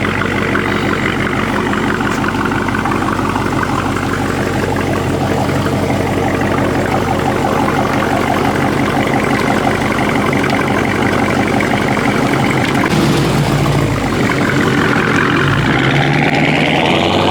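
Pickup truck engine idling with a steady, rapid low pulse. The low tone shifts around 13 seconds in, and the pitch starts to rise near the end.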